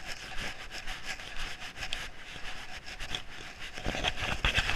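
A saddled mule walking along a dirt trail: uneven hoof steps and the clicking and rubbing of its tack, with heavier thuds near the end.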